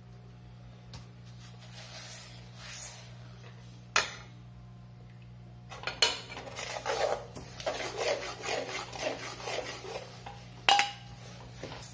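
Steel spoon scraping around an aluminium kadai, stirring toasted sesame seeds into hot jaggery syrup, with a run of quick strokes through the second half. Two sharp metal clinks, one about four seconds in and one near the end.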